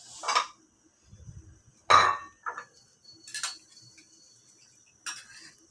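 Kitchenware clinking and knocking: about five separate short hits of dishes or utensils being handled, the loudest about two seconds in.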